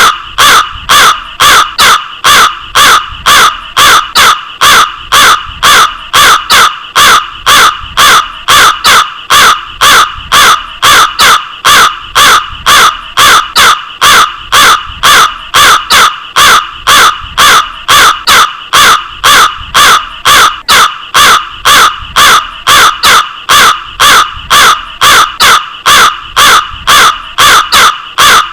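Crow cawing over and over: short, harsh caws at about two a second in a steady, unbroken series.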